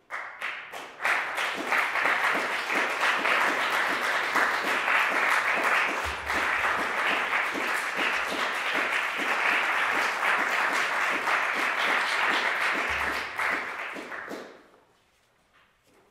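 Audience applauding. The clapping starts abruptly, holds steady for about fourteen seconds, and then dies away.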